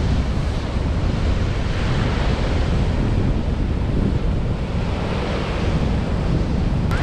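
Sea waves washing onto a sandy beach, a steady surf noise, with wind buffeting the microphone in a heavy low rumble.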